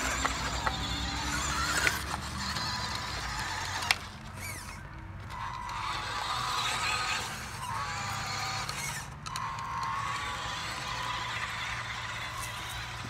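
Diecastmasters radio-controlled Western Star dump truck driving loaded over dirt: its drive motor and gears whine, the pitch sliding up and down several times with the throttle, over a grinding rustle of tyres on grit. There is a sharp click about four seconds in.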